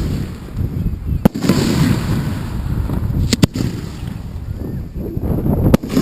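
Display fireworks shells going off up close: a sharp report about a second in, two in quick succession midway, and another near the end, over a steady low rumble.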